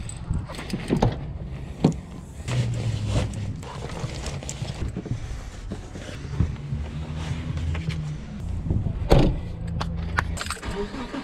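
Knocks and clatter of gear being loaded into the rear cargo area of a hatchback car over a steady low rumble, with one louder bang about nine seconds in.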